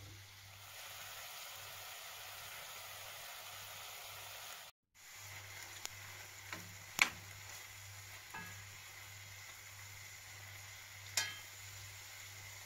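Diced bacon sizzling as it fries in a pan, with a spoon stirring it and clinking against the pan a few times, the loudest clink about seven seconds in. The sound drops out for a moment about five seconds in.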